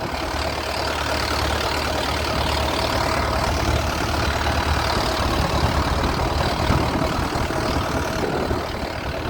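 Boat engine running steadily: a low, even drone with a steady hiss over it.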